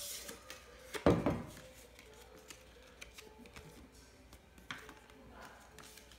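Stainless steel shaker cup handled while a paper card is drawn out of it: light paper rustling, then the steel cup set down on a wooden table with one loud knock about a second in, followed by a few small clicks and rustles.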